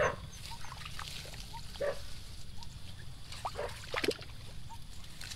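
Faint rustling of wet grass and small sloshes of shallow water, a few short soft knocks and swishes, the most distinct about two seconds in and again around four seconds, over a steady low rumble.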